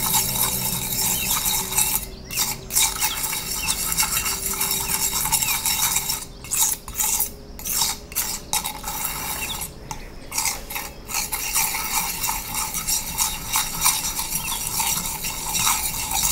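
Steel palette knife scraping and spreading thick watercolour paste of pigment, gum arabic and honey across a flat slab in repeated strokes, blending and grinding the pigment finer. A continuous wet scraping with a few brief pauses between strokes.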